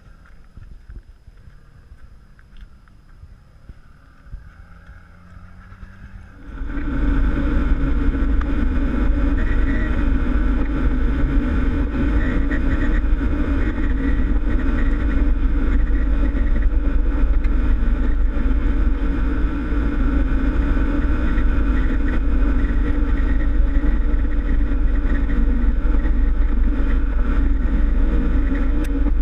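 Four-wheel-drive vehicle driving along a dirt bush track: a steady engine-and-drive noise with heavy low rumble, starting abruptly about six seconds in after a quieter stretch with a faint distant engine.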